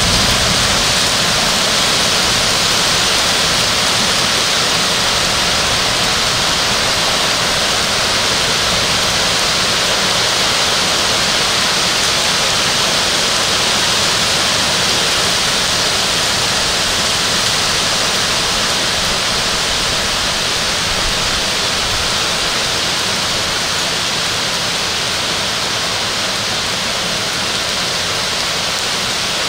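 Heavy rain in a thunderstorm, falling steadily on pavement and roofs as a dense, even hiss that eases slightly near the end.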